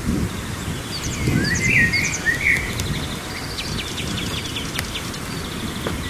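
Songbirds singing in spring woodland: a short warbling phrase about a second in, then a quick run of thin high notes. Under it runs an uneven low rumble of wind on the microphone.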